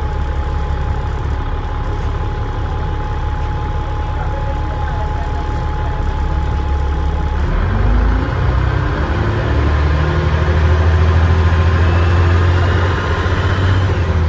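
Euro 2 Dennis Trident double-decker bus engine, heard from on board. It runs steadily for the first half, then the revs climb and it pulls harder from about halfway through. Near the end a rising turbo whistle comes in.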